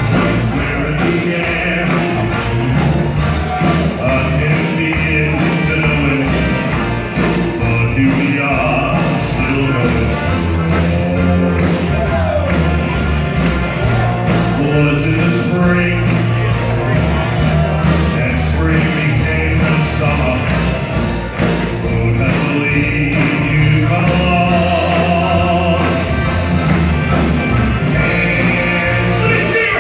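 Live band with saxophones, trumpets, electric guitar, accordion and drums playing an up-tempo rock-and-roll-style number with a steady beat, with singing over it, heard through the stage PA.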